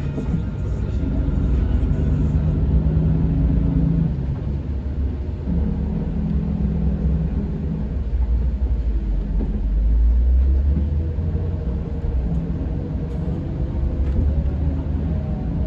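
Scania K410 bus's 13-litre inline-six diesel engine running, a low rumble whose engine note shifts in pitch several times.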